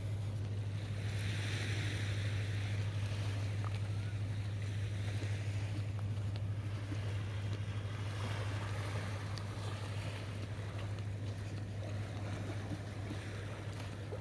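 Small waves lapping gently on a sandy shore, swelling softly about a second in and again around eight seconds, over a steady low hum.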